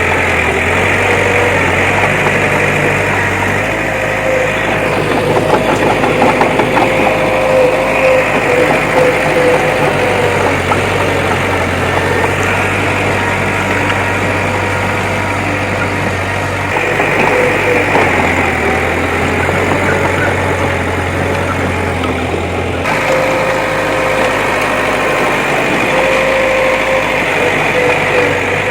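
Bulldozer's heavy diesel engine running under work, its low note shifting up and down in pitch several times as the load changes.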